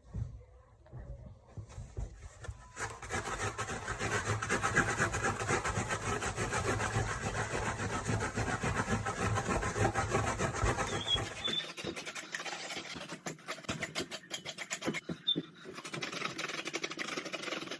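Continuous rough scraping and rubbing with fast irregular clicks, starting about three seconds in and growing thinner and lighter after about twelve seconds.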